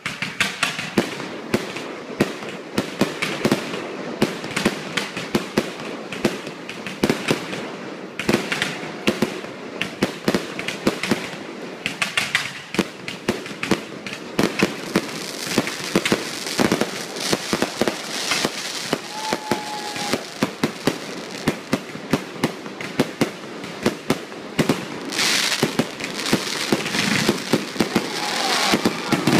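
Fireworks display: a rapid, near-continuous barrage of bangs and crackles from rockets trailing sparks, getting louder a few seconds before the end.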